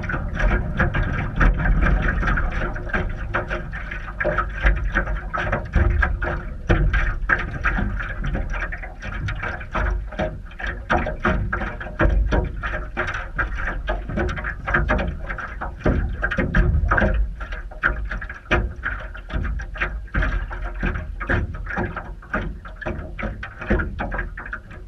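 Frequent knocks and clatter on a small metal boat's hull and deck as people shift and step about in it, over a low rumble.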